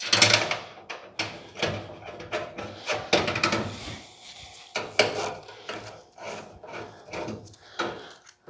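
Woven stainless steel grill mesh being handled and fastened into the grill's black surround: irregular clicks, scrapes and rattles of metal mesh, loudest right at the start.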